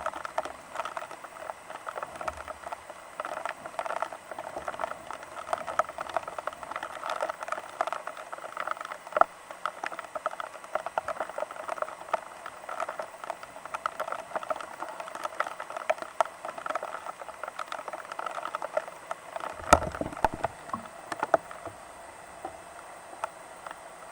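Rain pattering on a nearby surface: a dense stream of small drop ticks, with a few louder knocks, thinning out near the end.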